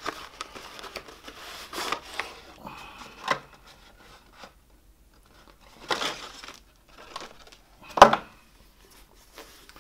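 Cardboard sunglasses box being opened and handled, the card crinkling and scraping in short spells as the glasses case is pulled out. About eight seconds in comes a sharp knock, the loudest sound, as the box is set down on the wooden desk.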